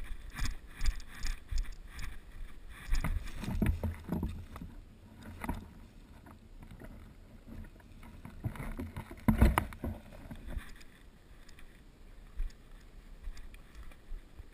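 Rustling, scuffing and irregular thumps from a player moving about, picked up by a helmet-mounted action camera. The loudest thump comes about nine and a half seconds in.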